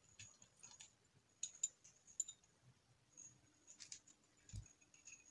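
Faint scattered clicks and small taps of hands working at the end fitting of an electric quartz room heater's heating rod as one side of it is opened, the sharpest clicks about one and a half to two seconds in and a dull knock near the end.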